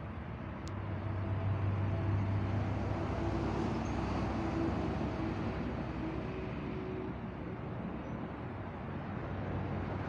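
Passing road traffic: a vehicle's engine hum swells about a second in and eases off after the middle, over a steady background noise.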